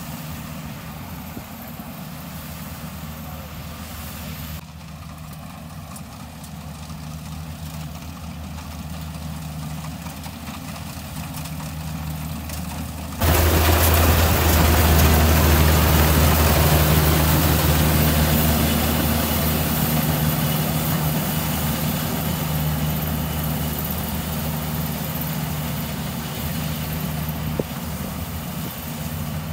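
Rice combine harvester's diesel engine running steadily as the machine harvests, growing slowly louder as it approaches. About 13 seconds in it suddenly becomes much louder and fuller, close beside the machine, then gradually fades as it drives away.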